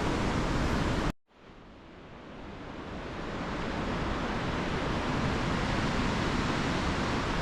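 Storm-force wind rushing through pine trees and buffeting the microphone, a dense steady roar. It cuts out sharply about a second in, then swells back up over the next few seconds.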